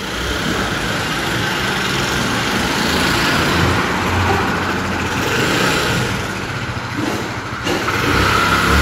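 Steady road-traffic noise: a continuous rushing hiss with the low hum of vehicle engines, the hum swelling as a vehicle passes and again near the end.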